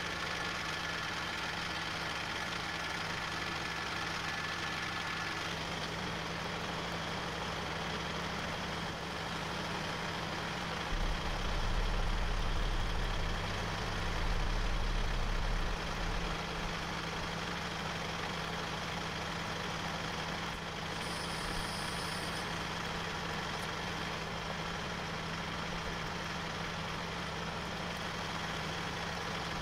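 Massey Ferguson tractor's diesel engine idling steadily, with a louder, deeper rumble for a few seconds near the middle.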